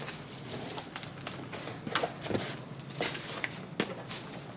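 Cardboard shipping box and packaging being handled and opened, with scattered rustles and short clicks.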